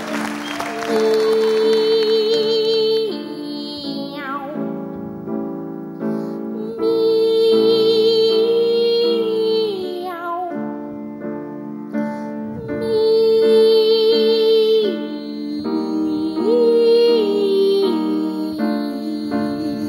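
Boy trebles singing long, wavering 'miaou' notes of a comic cat duet over grand piano chords; several of the held notes slide downward at their ends, with piano chords in between.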